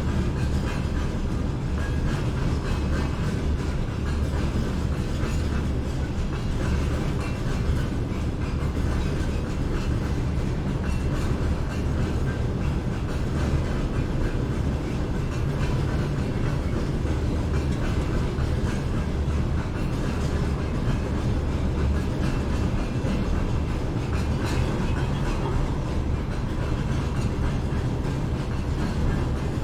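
A train running past on city rail lines, heard from high up: a continuous low rumble that holds steady throughout.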